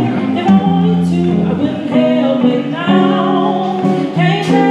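A woman singing a soulful song live into a microphone, holding and bending long notes, with instrumental backing.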